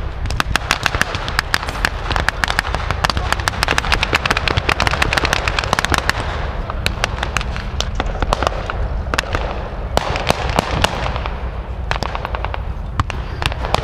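Blank small-arms and machine-gun fire: many sharp, overlapping cracks a second, thinning to scattered shots about halfway through, over a steady low rumble.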